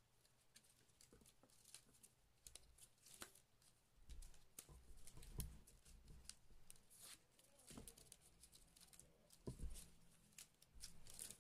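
Faint, scattered ticks and rustles of 6 mm plastic pearl-ribbon strips being pulled through and tucked into a hand weave, with a few soft handling bumps.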